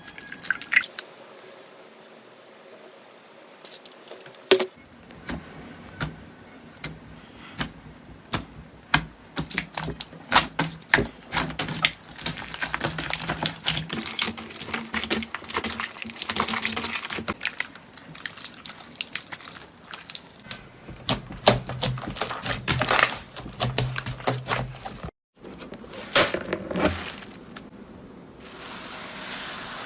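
Slime being squeezed and stretched by hand, with dense runs of sharp sticky clicks and crackling pops, briefly cut off a little before the end.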